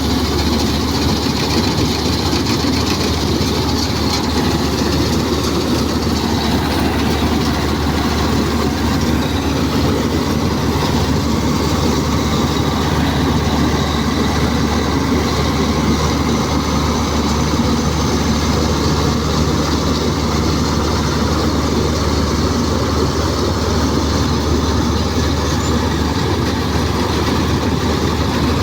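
Combine harvester running steadily under load, its diesel engine humming low beneath the clatter and rush of its cutting and threshing machinery.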